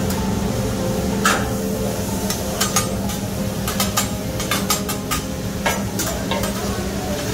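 Metal spatulas scraping and clacking irregularly on a Mongolian barbecue flat-top griddle while beef and vegetables sizzle on the hot steel. A steady low hum runs underneath.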